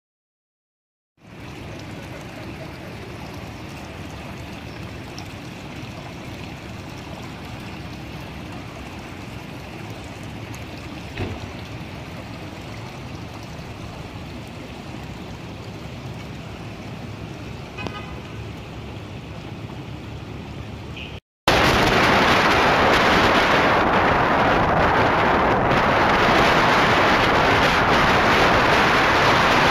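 Water from a burst water main running across a street, a steady wash of sound, with a brief horn-like toot about two-thirds of the way through. After a short break, loud steady wind rush on the microphone of a vehicle moving along a road.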